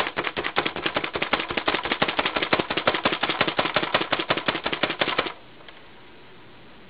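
Hand-operated plunger food chopper mincing garlic and ginger root: the plunger is pumped fast, giving a quick even run of clacking strokes, several a second, that stops abruptly about five seconds in.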